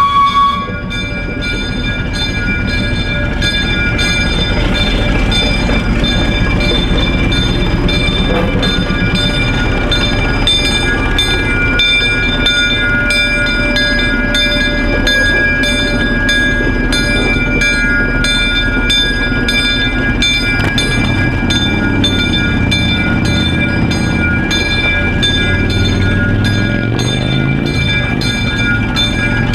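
Plymouth gasoline switching locomotive running as it pulls past, with its bell ringing steadily. A horn blast cuts off just at the start, and the engine note rises near the end.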